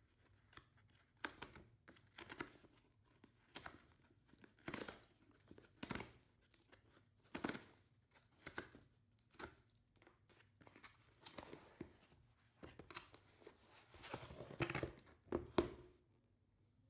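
Cardboard shipping box being torn open along its perforated tear strip and handled: a string of short tearing and rustling sounds about once a second, loudest near the end.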